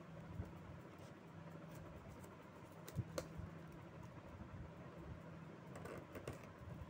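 Faint scratching with a few sharp little clicks as a thin pointed metal tool picks at and slits the plastic shrink-wrap on a phone's cardboard box; the loudest clicks come about three seconds in.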